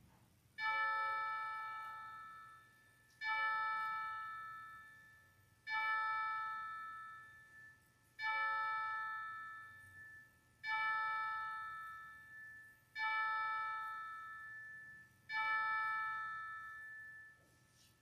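A single bell tolled seven times at the same pitch, one stroke about every two and a half seconds, each ringing out and fading before the next.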